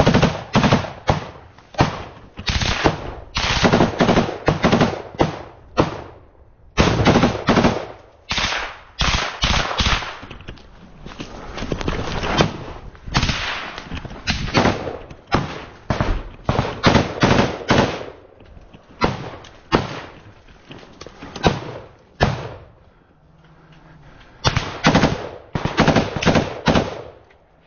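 Rifle fire at close range, many rapid shots and short automatic bursts. It breaks off briefly about six seconds in and again near the end.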